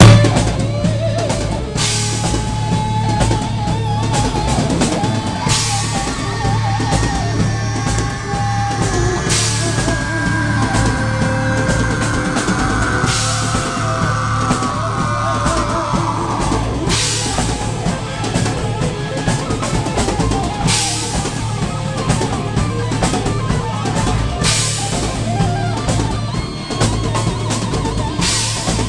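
Live heavy metal band playing loud through a club PA: distorted electric guitar and bass over a drum kit, with cymbal crashes every few seconds. Through the middle a long lead guitar line is held and bent, sliding down in pitch before the full riffing returns.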